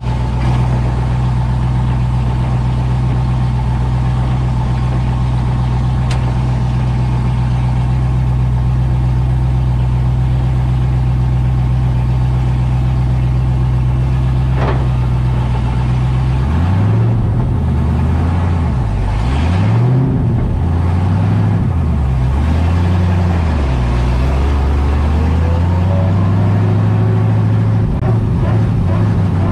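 LS3 V8 engine of a swapped Mazda Miata, heard from inside the cabin, idling steadily, then from about sixteen seconds in its speed rises and falls again and again as it is revved.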